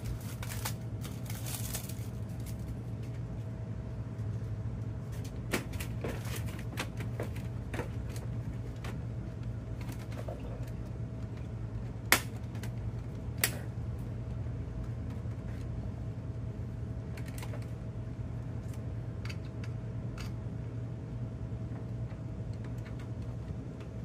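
Scattered light plastic clicks and rattles as a pickup's interior door trim panel and its cable connectors are handled, with a sharp click about twelve seconds in and another a second and a half later. A steady low hum runs underneath.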